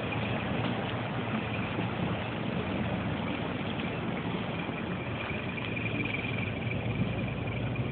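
Steady low drone of a workboat's engine running among the broken river ice.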